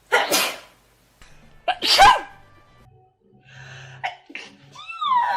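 Two human sneezes: a short, breathy burst right at the start, then a louder, voiced "achoo" about two seconds in. Near the end, a high-pitched voice slides downward in pitch.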